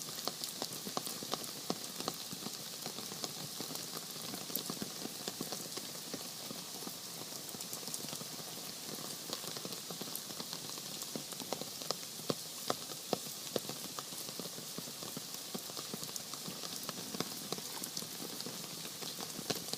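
Monsoon rain falling steadily: a dense, even hiss of rain with many sharper individual drop hits scattered through it.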